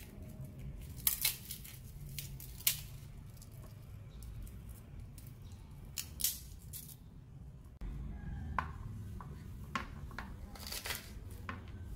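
Garlic bulb being broken into cloves and its papery skins peeled by hand: short, dry crackles and snaps in small clusters, the loudest about a second in, near three seconds, around six seconds and near eleven seconds.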